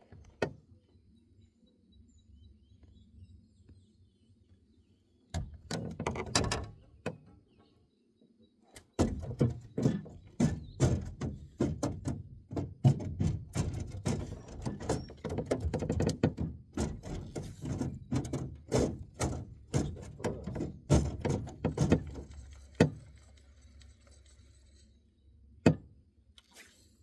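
Close handling noise in a boat: a dense run of knocks, thumps and rustles lasting about thirteen seconds through the middle, with a shorter burst a few seconds before it, as a freshly caught bream is dealt with and the hook is rebaited.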